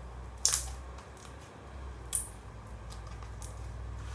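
Clear glue-based water slime pressed and squished by hand on a tabletop, giving two sharp wet pops, about half a second in and about two seconds in, with fainter small crackles and ticks between.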